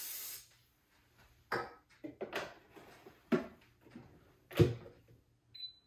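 Wire trays of the Pampered Chef Deluxe Air Fryer clattering and knocking as they are slid into its rack slots, a handful of sharp metal knocks with the loudest near the end. A hiss of cooking spray cuts off at the start, and the control panel gives a short beep just before the end.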